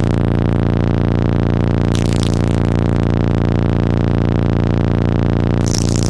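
A deep bass note held steady and very loud through Sundown Audio ZV4 15-inch car subwoofers, with a buzzing stack of overtones above it. Near the end the held note breaks off and busier music with cymbals comes back in.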